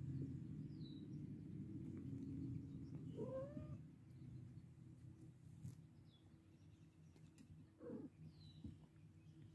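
Kitten meowing: one clear rising-and-falling meow about three seconds in, and a shorter, fainter one near the end, over a low steady hum.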